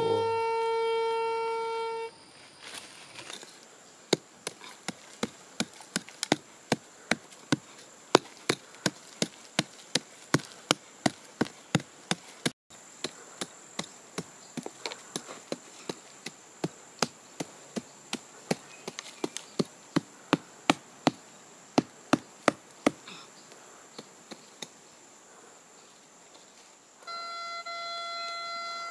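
A metal detector gives a steady tone as it signals a buried metal target, then a small pick chops into soil about twice a second for roughly twenty seconds. Near the end the detector sounds a steady tone again over the dug hole. Insects buzz steadily in the background.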